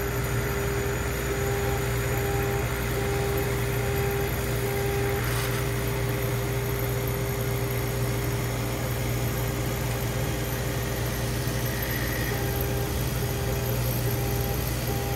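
Orion 50-watt laser cutter running as it cuts plywood: a steady low machine hum with a constant whine on top, and a short higher tone that switches on and off in regular pulses during the first few seconds and again near the end as the head moves through the cut pattern.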